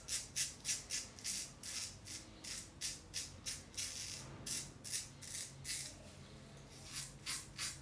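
Razor strokes scraping across lathered stubble, short and rhythmic at about three a second, with a brief pause near the end.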